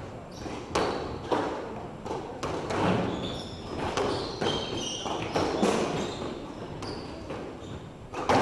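Squash rally: the ball is struck by rackets and smacks the walls in a run of sharp cracks, about one every half second to a second. Short high squeaks, from court shoes on the wooden floor, come in the middle of the rally.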